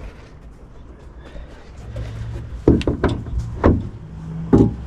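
Several sharp knocks and thuds as a plastic bait board is pushed and seated into its mount on a boat, about five in the last two seconds.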